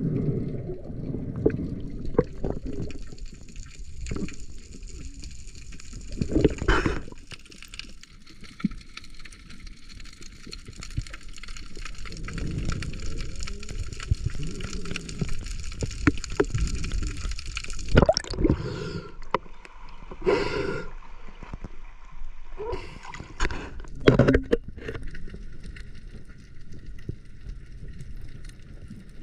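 Water gurgling and sloshing around the camera, with a few sharp splashes or knocks.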